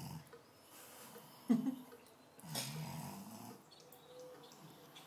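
A pug snoring while lying on her back, one slow rasping snore fading just after the start and another about two and a half seconds in. A short sharp noise about a second and a half in is the loudest moment.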